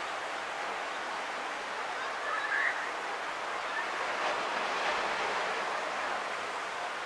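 Surf washing steadily onto a sandy beach, heard from a distance, swelling a little about four seconds in. A brief faint chirp comes about two and a half seconds in.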